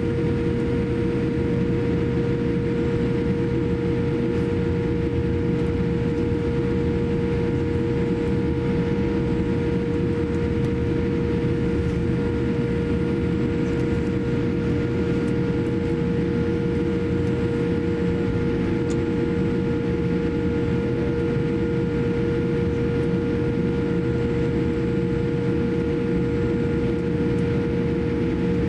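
Steady cabin noise inside a Boeing 787-8 taxiing with its engines at idle: an even rumble with a constant humming tone running through it.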